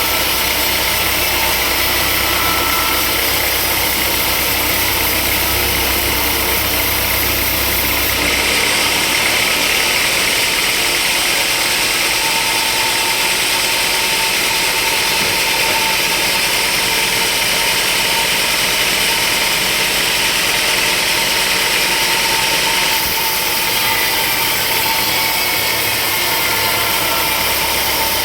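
Sawmill machinery running steadily with a continuous hum. About eight seconds in the low rumble drops away and the sound turns brighter and hissier, then changes back near the end.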